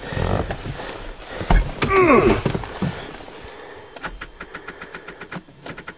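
Starter solenoid of a Nissan 4x4 pickup clicking rapidly, about seven clicks a second, as the key is turned: the battery is too dead to crank the engine. Earlier, a man's voice slides briefly down in pitch.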